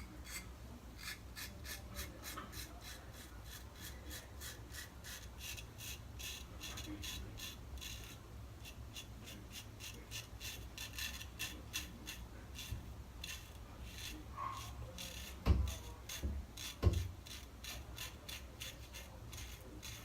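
Gem Clog Pruf single-edge safety razor rasping through lathered beard stubble in short, repeated strokes, with plenty of blade feedback. Two dull knocks come near the end.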